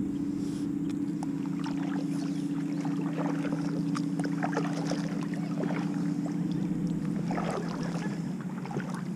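Kayak paddle strokes: water splashing and dripping off the paddle blades in many small trickles and ticks, with a busier splash about three-quarters of the way through. A steady low hum runs underneath.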